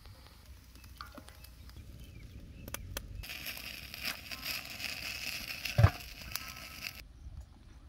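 A steady hiss starts about three seconds in and cuts off abruptly near the end. During it, a loud thud about six seconds in as a large metal tray of marinated chicken is set down on a steel pot. Faint scattered clicks come before the hiss.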